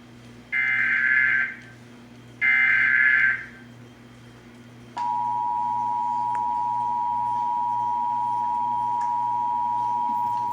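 Emergency Alert System National Periodic Test tones: two one-second bursts of the SAME digital header data. About five seconds in, the steady two-tone attention signal (853 and 960 Hz together) starts and holds.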